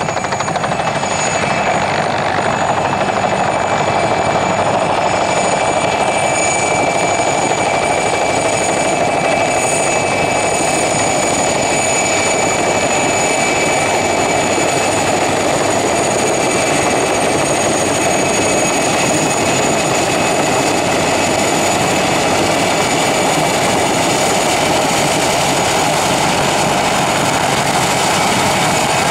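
PZL Mi-2 helicopter's twin turboshaft engines and rotors running steadily and loudly with a high turbine whine, as it hovers low and descends to land.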